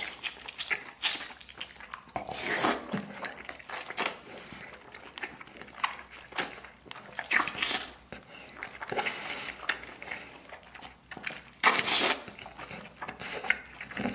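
Close-miked eating: a man bites into and chews soft, fatty braised pork belly, giving irregular wet mouth sounds with a few louder bursts.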